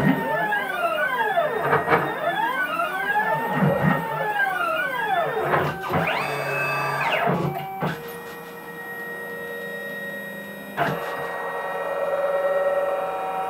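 Stepper motors of a homemade CNC router driving its axes through rapid test moves. Each move is a whine that rises and falls in pitch as the axis accelerates and decelerates, repeating about every two seconds. About six seconds in, a longer move ramps up, holds a steady high whine for about a second and ramps back down. The motors then settle to a steady hum, with a single click about eleven seconds in.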